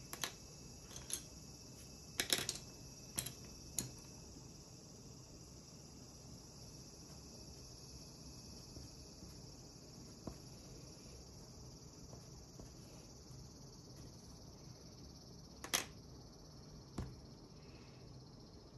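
Wooden colored pencils clicking against one another and the desk as they are set down and picked up: a cluster of sharp clicks in the first four seconds and two more near the end, over a faint steady hiss.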